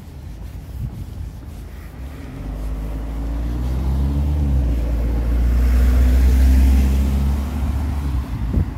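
A motor vehicle passing close by: a low engine rumble builds over a few seconds, is loudest about six seconds in with added hiss, then drops away sharply near the end.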